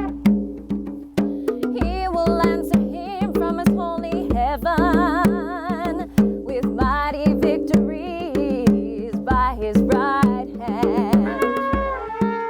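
Music: a wordless melodic line with strong, wide vibrato over a steady low drone, with regular percussion hits keeping a pulse.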